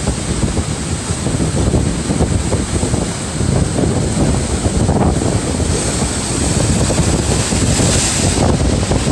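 Sea waves surging and washing ashore, with wind buffeting the microphone in a heavy low rumble. The hiss of the surf swells for a couple of seconds past the middle.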